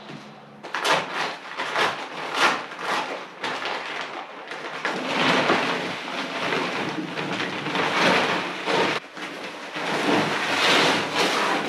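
Gritty scraping and rustling of sand and cement being scooped and worked in buckets by hand: first a run of short scrapes, then a denser, more continuous rustle.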